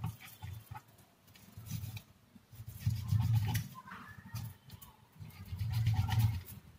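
A kitchen knife cutting raw chicken breast meat away from the bone on a wooden chopping board: soft, muffled handling and cutting sounds in a few short bouts.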